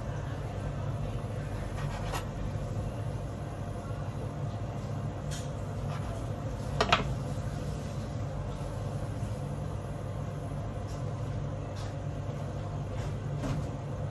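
Steady low hum of kitchen equipment. A few light taps and knocks come from sushi ingredients being handled on the cutting board and bamboo mat, the sharpest a quick double knock about seven seconds in.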